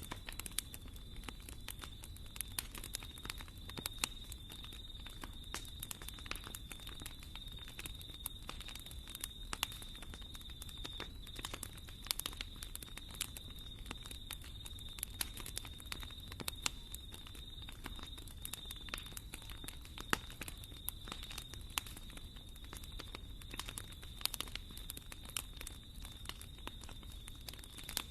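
Wood fire crackling in a fireplace: dense, irregular pops and snaps over a low rumble, with a steady high-pitched tone beneath.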